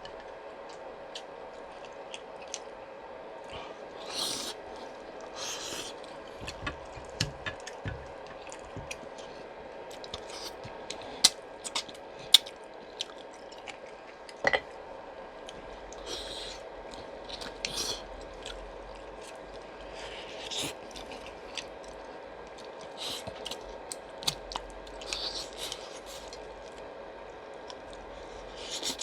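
Someone eating pork bone soup close to the microphone: chewing and soft squelching, with scattered clicks of spoon or chopsticks against the bowl, a few sharper ones about halfway through. A faint steady hum runs underneath.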